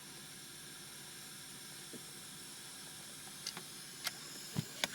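Steady hiss of air escaping from a leak in the 2000 Mercedes S500's pneumatic system, which should raise the rear headrests when the outer seat belts are buckled: the leak keeps them from coming up. A few faint clicks come in near the end.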